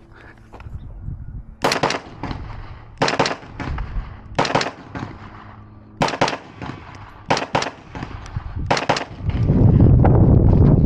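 Gunshots fired in quick pairs, one pair about every second and a half, six pairs in all: a shooter engaging targets on a timed stage. Near the end, after the last pair, there is a loud low rumbling noise.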